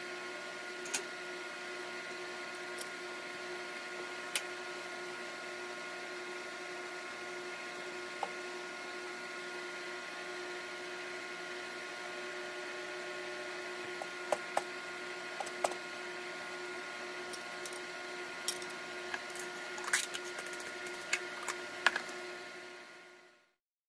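A steady mechanical hum with several held tones, with a few light clicks and scrapes of a silicone spatula against a nonstick frying pan, most of them in the second half. The sound fades out just before the end.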